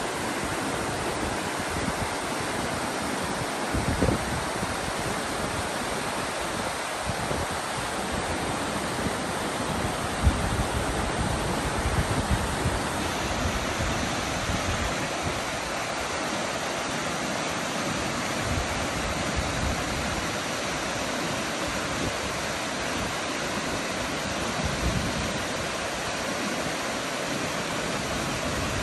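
A fast, shallow river rushing over rocks in whitewater riffles, a steady, even rush of water, with a few brief low thumps, one about 4 seconds in and one about 10 seconds in.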